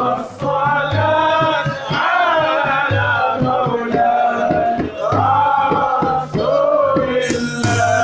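Men singing an Arabic devotional song (inshad, madih) in sung phrases, with a hand-held frame drum beating time under the voices.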